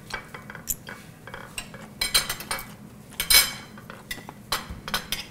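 Cutlery clinking and scraping on plates while food is eaten: a scatter of light clicks, with two louder scraping strokes about two and three and a half seconds in.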